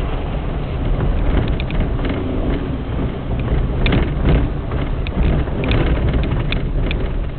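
Moving vehicle on a rough, potholed dirt lane: a steady low rumble with wind on the microphone, and scattered short knocks and rattles over the bumps, busiest in the middle.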